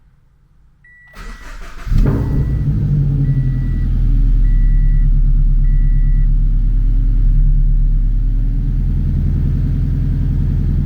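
Scion FR-S's 2.0-litre flat-four engine cranked on the starter and catching about two seconds in, then running loud and steady on its freshly flashed Stage 2 tune. An electronic chime beeps five times over the first six seconds.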